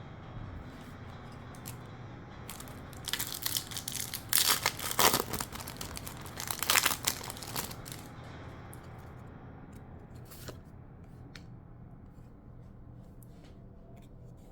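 Foil booster-pack wrapper being torn open and crinkled, in a few seconds of noisy tearing bursts starting about three seconds in, followed by a few light clicks and rustles.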